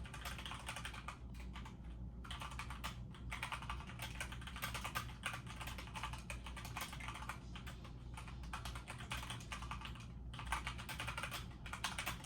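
Rapid, continuous typing on a computer keyboard, a dense stream of key clicks with brief pauses about two seconds in and near ten seconds in.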